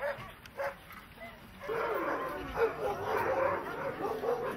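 Sled dogs barking: single short yips about every half second, then from about a second and a half in, many dogs yelping and whining at once.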